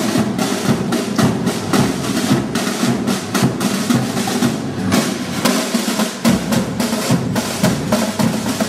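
Marching drums in a street procession, playing a fast, continuous beat of snare drum rolls over bass drum strokes.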